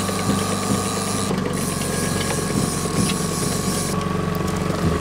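Fishing gear being wound in with a rapid mechanical clicking, over the steady running of the boat's outboard motor. The clicks are thicker in the last second or so.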